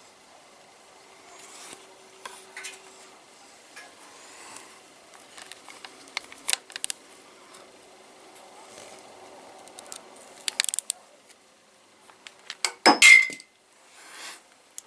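Metal tools and parts clinking and knocking as they are handled, in scattered light clicks, with a louder metal clatter about 13 seconds in.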